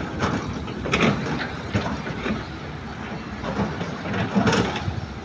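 Excavators at work: a steady engine rumble with irregular clanks and clatters, loudest about a second in and again near the end.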